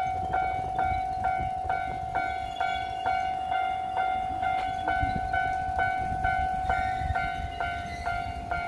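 Japanese level-crossing warning bell ringing in a steady repeating clang, about two strokes a second, over the low rumble of a train.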